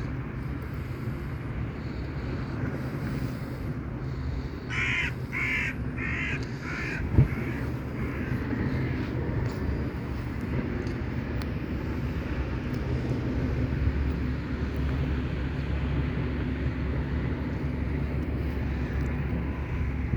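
A crow cawing in a quick series of four or five calls about five seconds in, over a steady low background rumble. A single sharp thump comes a couple of seconds after the caws.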